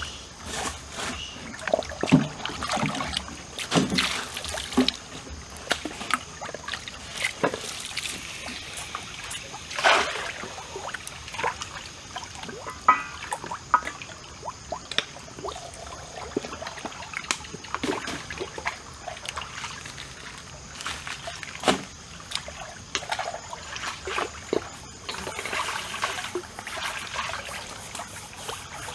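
Irregular wet clicks and smacks of someone chewing and pulling apart grilled chicken by hand, over a stream trickling steadily.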